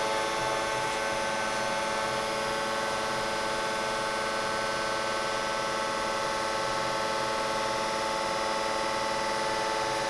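Marvel Series 25 tilt-frame bandsaw's hydraulic pump and motor running with a steady hum while the button is held to drive the frame forward.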